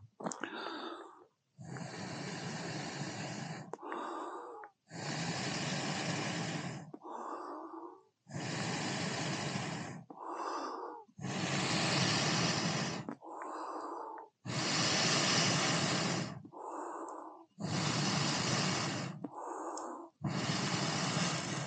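A person blowing long, steady breaths onto smouldering firewood to make it catch: seven long blows, each followed by a short breath in. The fire ring gets almost no airflow, so the wood only burns well while it is blown on.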